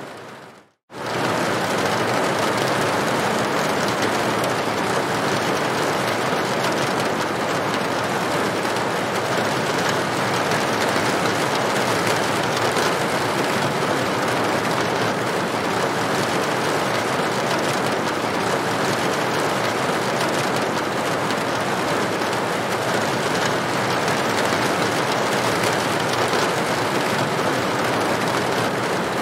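Steady rain falling on a corrugated tin roof. Right at the start it fades out to silence and comes back in under a second.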